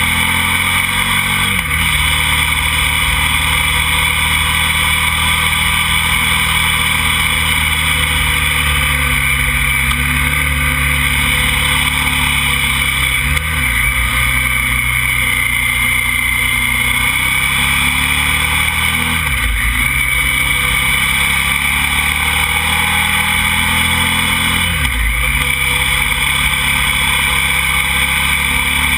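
KTM motorcycle engine running under load while riding along a winding road, with steady wind and road noise. The engine note dips sharply and climbs back four times.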